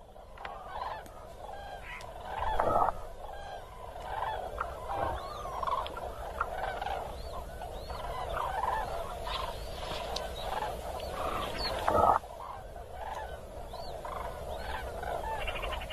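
A large flock of common cranes calling together: a dense chorus of many overlapping bugling calls. Two louder calls stand out, about three seconds in and again about twelve seconds in.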